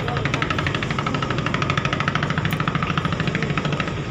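Rapid, even mechanical rattling, about ten strikes a second, that stops just before the end, over the steady low hum of a ship's engines.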